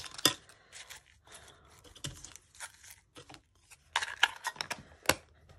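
A clear plastic craft container and packaging handled by hand: scattered plastic clicks and taps with light rustling. There is a sharp click about a quarter second in, a busier stretch around four seconds and another sharp click near the end.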